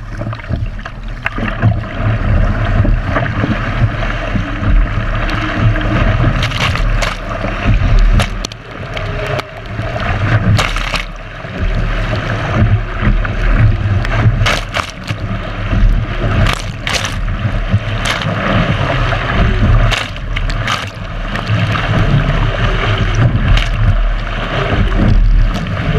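Sea water rushing and splashing against the bow of an Epic V7 surf ski as it is paddled through chop, with wind buffeting the microphone and sharp splashes every second or so.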